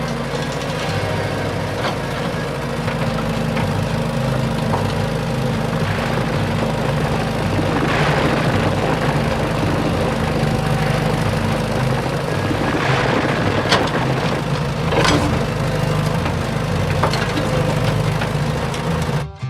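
An engine running steadily, with a few brief knocks over it. It cuts off suddenly near the end.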